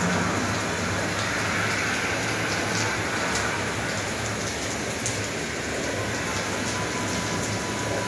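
Custom spa experience shower running its rain effect: a steady rain-like hiss with a low hum underneath.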